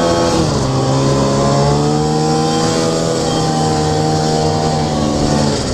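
Polaris Indy Lite 340 snowmobile's two-stroke engine running under load at steady revs; its pitch drops about half a second in and then holds lower. The sled is losing power, which the rider wonders is a failing ignition coil.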